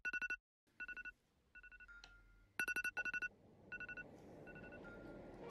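Electronic alarm beeping: rapid high beeps, about a dozen a second, in short bursts that come roughly once a second, some bursts fainter than others.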